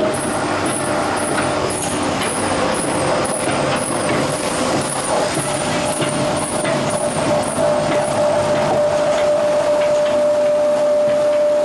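Veneer peeling and clipping lathe and the plywood-mill machinery around it running: a loud, steady mechanical din with scattered knocks, joined by a steady whine that comes in strongly about two-thirds of the way through.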